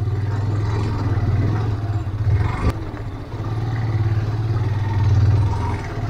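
Motorcycle engine running while riding, with a sharp click about two and a half seconds in and a brief drop in the engine sound just after three seconds.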